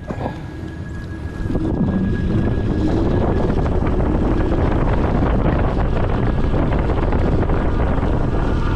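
A loud, steady, engine-like rumble that swells suddenly about a second and a half in, with a faint pitch that drifts upward.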